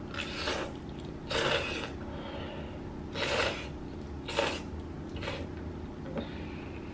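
A person slurping long noodles from a bowl of jjamppong (spicy Korean seafood noodle soup): about five short slurps roughly a second apart, the loudest in the middle.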